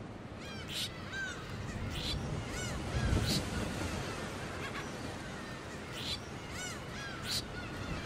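Several birds calling: many short, arching chirps mixed with a few sharper squawks every second or two, over a steady background hiss.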